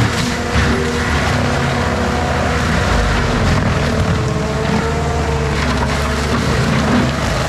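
ASV RT-120 compact track loader's diesel engine running hard under load while its Fecon forestry mulching head grinds brush and small trees, a steady heavy drone mixed with the crunch and splintering of wood being shredded.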